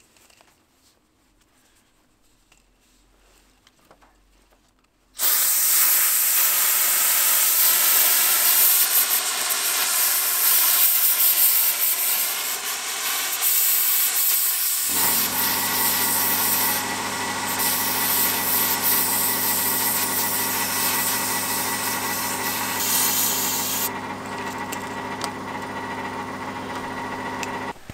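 Compressed air from a blow gun hissing into a flexible underground wiring conduit, driving a rag and pull rope through the pipe. The air starts suddenly about five seconds in, with wavering whistling tones over the hiss. About ten seconds later it settles into a steady low hum under the hiss.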